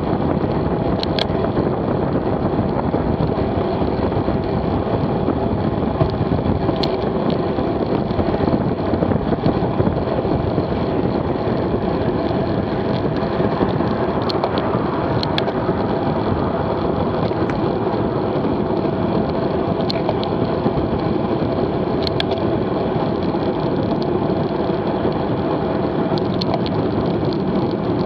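Steady rush of wind across a bike-mounted camera's microphone and road-bike tyres humming on asphalt at about 27–28 mph. A few sharp clicks stand out every few seconds.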